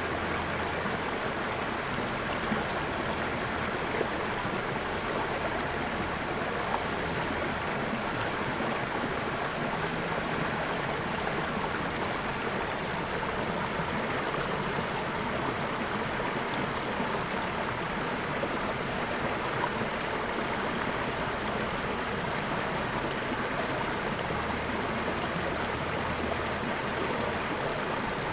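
Natural water flowing steadily, an even rushing sound with a few small splashes standing out.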